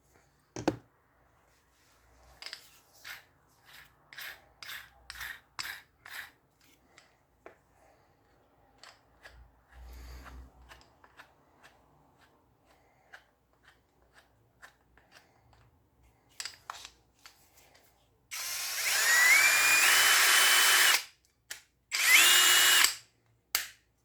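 Electric drill-driver run in two short bursts, the first about three seconds long and the second about one, its motor whine rising in steps as it spins up, typical of driving screws. Before that, a scatter of light clicks and knocks.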